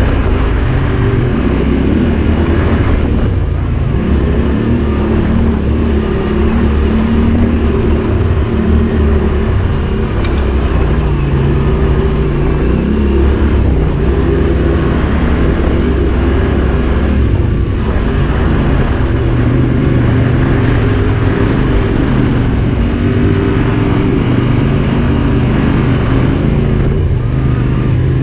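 Yamaha Ténéré 700 parallel-twin engine running on a dirt trail under changing throttle, its note rising and falling with speed and gear changes. Heard from the rider's helmet camera, with wind and tyre noise under it.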